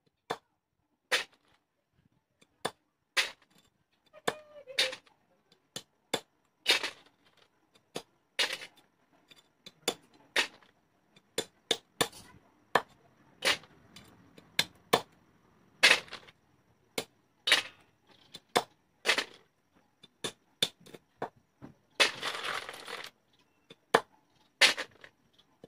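A cleaver chopping river snails on a wooden block: a run of sharp, irregular knocks, about one a second. Near the end comes a rustle lasting about a second.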